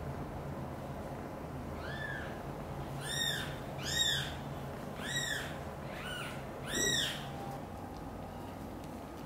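Newborn kitten meowing loudly and repeatedly: about six short, high-pitched cries, each rising and then falling in pitch, the loudest near the middle and near the end.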